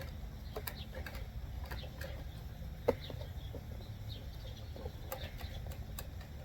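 Light clicks and taps of small plastic and wire parts being handled at a car door trim panel, with one sharper click about three seconds in, over a steady low hum.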